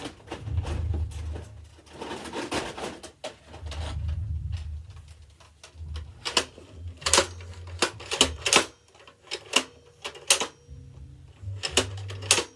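A toy gun being handled: low rumbling handling noise, then a run of sharp, irregular clicks and knocks in the second half.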